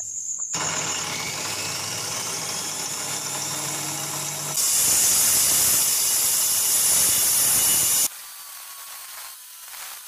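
Table saw ripping a coconut-wood board. The saw runs with a low hum under a steady hiss from about half a second in. The cut grows louder and harsher about halfway through, then the sound drops off sharply about eight seconds in.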